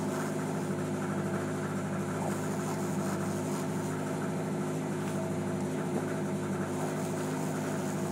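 An engine running steadily aboard a fishing boat, an even hum that holds one pitch without revving.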